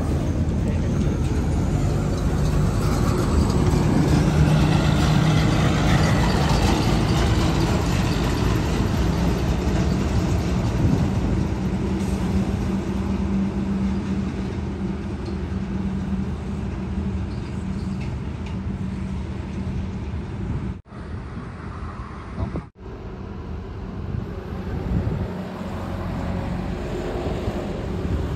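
Heavy truck passing on the road, its engine and tyre noise loudest in the first ten seconds and then easing into steady road traffic noise. The sound drops out briefly twice about two-thirds of the way through.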